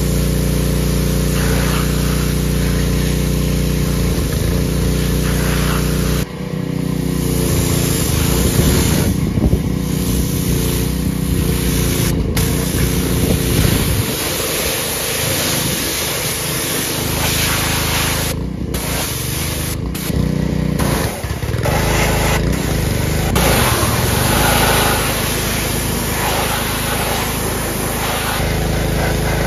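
Pressure washer running steadily, its motor humming under the hiss of the high-pressure water spray striking the mower's plastic body and tyres. The sound changes abruptly several times, about six seconds in and again a few times later.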